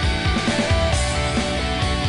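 Rock backing music with a steady drum beat.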